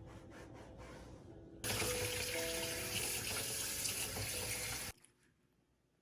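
Steady hiss of running water, starting sharply a little after a second and a half in and cutting off about five seconds in.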